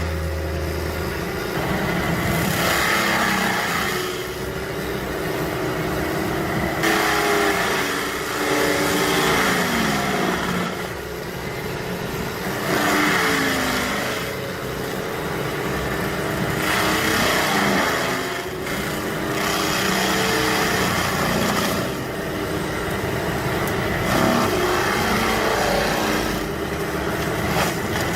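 Tracked forestry mulcher at work: its engine runs hard and repeatedly drops in pitch, then recovers, as the mulching drum takes load. Bursts of shredding noise recur every few seconds as the drum chews through vegetation.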